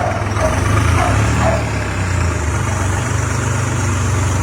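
Tractor diesel engine running steadily at a low, even drone.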